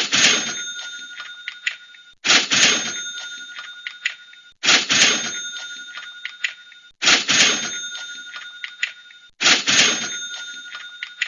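Cash register "ka-ching" played over and over, about every two and a half seconds, five times in all. Each one is a sharp clatter as the drawer opens, then a bell rings and fades, with a few small clicks along the way.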